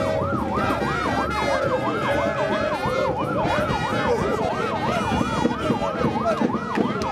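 Police siren sounding a fast yelp, its pitch rising and falling about three times a second, with a second, lower wavering tone underneath.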